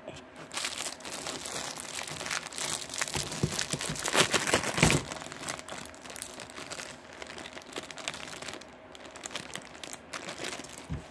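Slime being squished and worked by hand, a dense run of crackling and popping, loudest about four to five seconds in.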